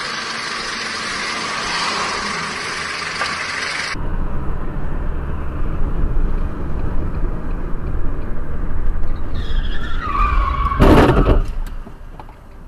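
Steady rushing road noise from a moving vehicle, then a car's low road rumble heard from inside the cabin. About ten seconds in, a tyre squeal falls in pitch and is followed by a short, loud bang.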